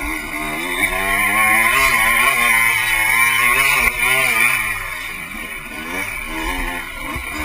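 Off-road dirt bike engine revving up and down as the throttle is worked, rising and falling in pitch again and again, loudest in the first half.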